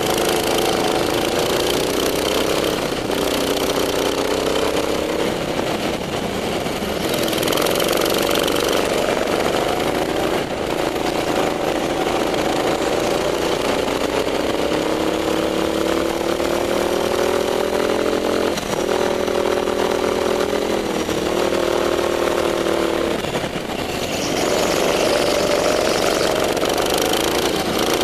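Racing kart's small petrol engine running hard, heard from on board. Its pitch climbs steadily and then drops back several times as the throttle opens and closes around the lap.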